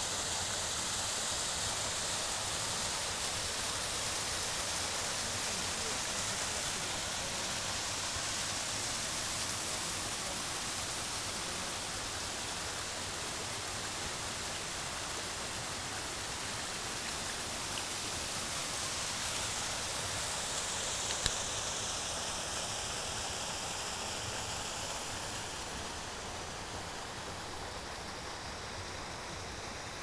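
Mountain waterfall and stream, a steady rush of falling and flowing water, easing a little towards the end. A single short click about two-thirds of the way through.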